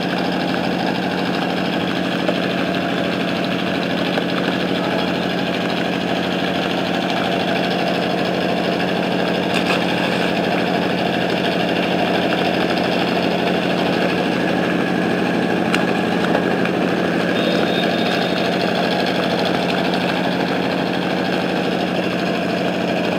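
An engine running steadily at an even idle, a constant unchanging drone, with a few faint clicks over it.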